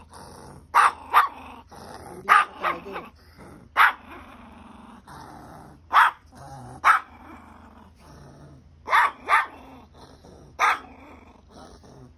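Two small dogs barking and growling at each other as they tussle: short, sharp barks in irregular bursts, often two in quick succession, with growling between them.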